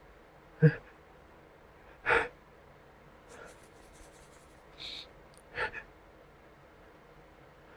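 A man's short gasping, snorting breaths as a sneeze builds from sniffing Creole seasoning. There are about five separate breaths, the loudest about half a second in and another strong one about two seconds in, with fainter sniffs later.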